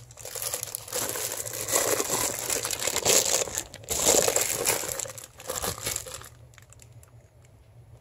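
Clear plastic bag crinkling around a chrome exhaust tip as it is handled and turned. The rustling dies down about six seconds in, leaving a few light clicks.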